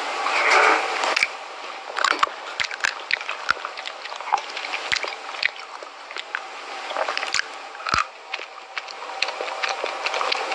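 Wet squishing and crunching of food being squeezed by hand and eaten, with many sharp clicks and smacks and a denser, louder stretch of squelching in the first second or so.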